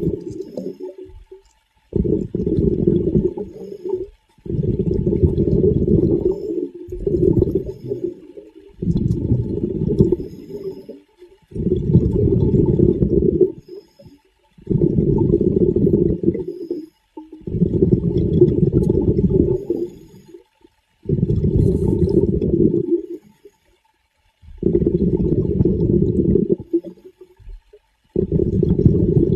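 Low, muffled rushing and gurgling water noise that comes in repeated bursts of about two seconds, with short breaks between them.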